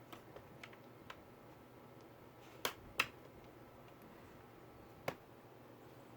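Small hard clicks and taps from hands working on an open laptop: a few light ticks, then two sharp clicks close together near the middle and a single click about five seconds in.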